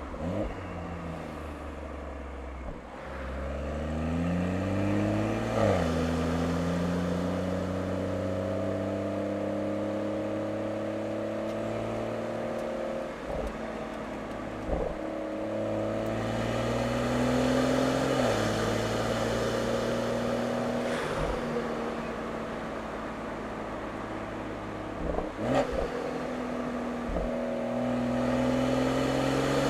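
BMW M240i's B58 turbocharged 3.0-litre inline-six, tuned to Stage 2 with an aftermarket intake, resonator delete and catted downpipe, heard through its intake and exhaust while driving under light throttle. The note climbs slowly in pitch and drops back at upshifts about six and eighteen seconds in, with a few short clicks along the way.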